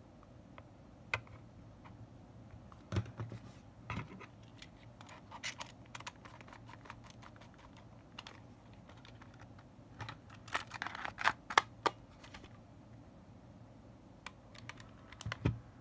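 Small, irregular plastic clicks and taps from a Sony WM-EX85 cassette Walkman being handled, its casing, covers and switches clicked. A quick run of sharper clicks comes about ten to twelve seconds in, with one more near the end.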